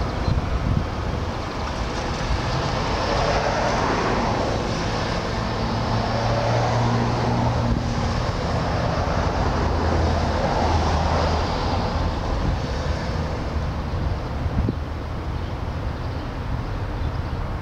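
Traffic noise: a motor vehicle passes, its engine rumble and road noise swelling over several seconds and then fading, over a steady outdoor rumble.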